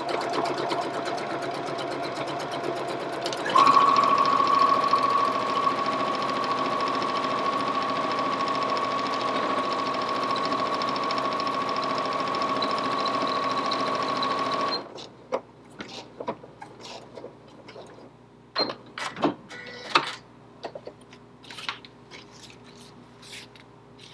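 Janome HD5050 computerized heavy-duty sewing machine stitching through backed vinyl, running steadily, then louder with a steady whine from about three and a half seconds in. It stops abruptly about fifteen seconds in, and scattered clicks and rustles follow as the vinyl is handled.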